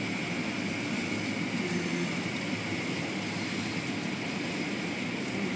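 Automatic car wash heard from inside the car: spinning cloth wash strips and brushes sweeping over the body under water spray, a steady rushing noise over a constant machine hum.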